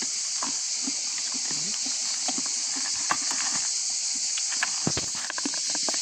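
Goats grazing close by, biting and tearing grass and stepping in leaf litter: scattered short clicks and crunches. Behind them is a steady high drone of insects.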